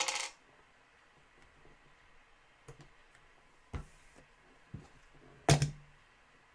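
A few scattered soft clicks and knocks, with a louder knock about five and a half seconds in.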